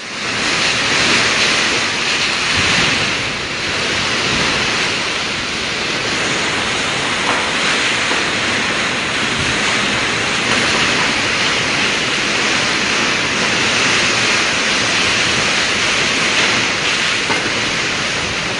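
Typhoon wind and heavy driving rain: a loud, steady rushing noise that swells and eases a little with the gusts.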